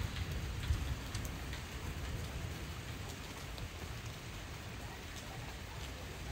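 Steady rain falling, with scattered drops ticking. Underneath is a low rumble that eases after about the first second.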